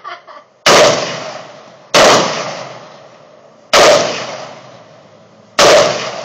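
Four rifle shots, one to two seconds apart, each sharp crack followed by a fading echo.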